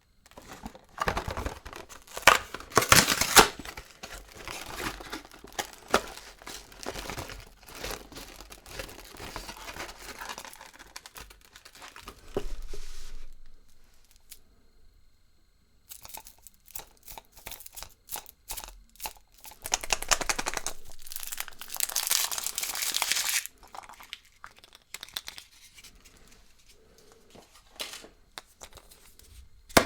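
Foil wrapper of a Kinder Surprise chocolate egg being torn and crinkled by hand in two long spells of dense crackling, with a short pause between them and a few scattered crackles afterwards.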